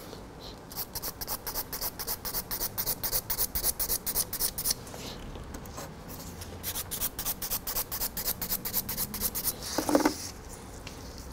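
Half-moon hand nail file rasping back and forth across an acrylic nail, thinning its surface, in quick strokes about five a second. There are two runs of strokes with a short pause between them, and a brief louder knock near the end.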